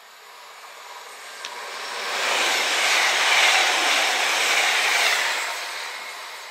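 CrossCountry Voyager diesel-electric multiple unit running past the platform: a rush of wheel and engine noise that builds, holds for about three seconds as the train goes by, then fades as it moves away.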